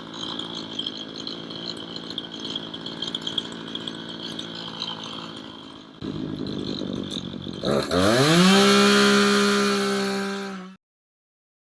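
Chainsaw engine running, then revved hard about eight seconds in, its pitch climbing fast and holding high at full throttle. It cuts off abruptly near the end.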